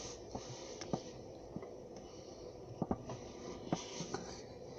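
Pencil drawing on paper: faint steady scratching of the lead, with several short sharp taps as the pencil touches down.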